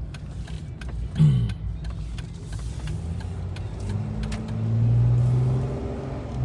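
Car driving, heard from inside the cabin: a steady low engine and road rumble with small scattered clicks and rattles. About a second in there is a short falling sound, and around five seconds in a louder, steady engine hum rises for about a second before settling back.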